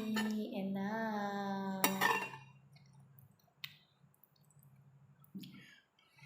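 A utensil clinks against a dish, once at the start and again about two seconds in, over a drawn-out spoken 'enak'. A single faint click comes a little later, and a low steady hum sits under it all.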